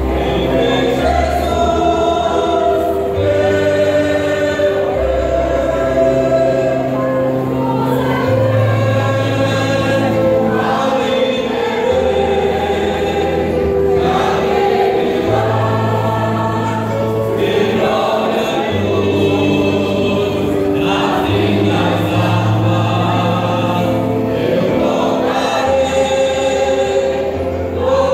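Mixed choir of men's and women's voices singing, over long low bass notes that change every couple of seconds.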